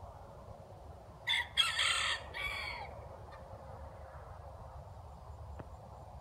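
Bantam rooster crowing once, about a second in: a crow of about a second and a half in three parts, the last part trailing down.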